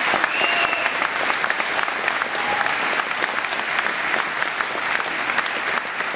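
Audience applauding steadily, a dense patter of many hands clapping, with a voice calling out over it in the first second.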